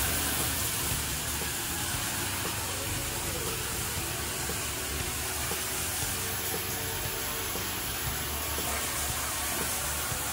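Shower running: a steady hiss of water spraying onto the tiled floor of a small shower stall.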